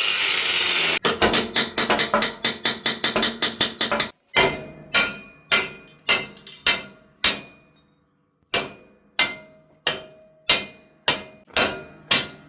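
Battery angle grinder cutting steel for about a second, then stopping. Rapid metal-on-metal strikes follow, several a second, then slow to single ringing blows about every half second, as the rusted-on rim sleeve is knocked loose from the seized axle.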